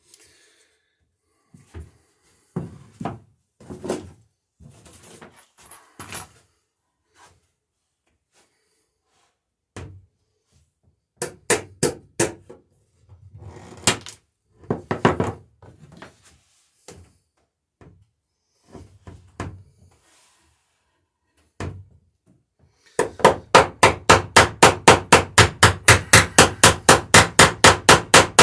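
Scattered knocks and tool clatter, then near the end a fast, even run of light hammer taps, about five or six a second: a hammer peening over the end of a copper rivet through the planking of a wooden dory.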